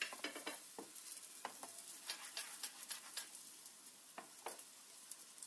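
Thin crepe frying in hot oil in a pan: a low sizzle with scattered, irregular crackling pops.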